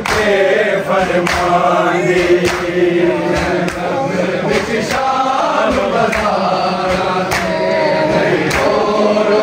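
Men chanting a Shia noha lament, a sung phrase rising and falling, over even, sharp slaps about once every 1.2 seconds that keep the beat of matam chest-beating.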